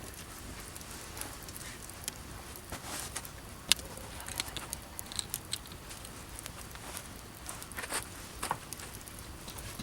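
Campfire crackling: burning wood giving irregular sharp pops and snaps, the loudest about a third of the way in, over a faint steady hiss.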